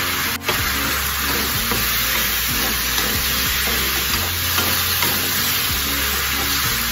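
Squid rings sizzling in oil in a frying pan, stirred with a wooden spatula that scrapes and taps against the pan.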